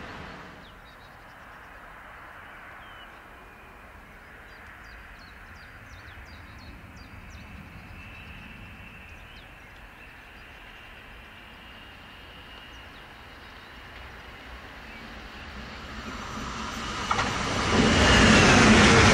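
Stadler FLIRT electric multiple unit (DB class 427/428) approaching and passing at speed, its running noise swelling over the last few seconds to a loud rush past. Before that, a low steady outdoor background with faint high chirps.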